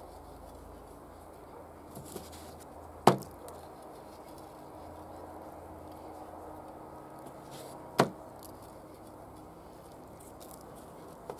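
Two sharp knocks on a wooden board, about five seconds apart, the first about three seconds in. They are the loudest sounds, over faint steady background noise while hands salt raw carp steaks.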